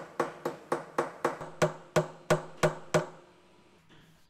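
Hammer striking steel letter and number punches into white oak, stamping an inscription: a quick run of about a dozen sharp blows, about three a second, that stops about three seconds in.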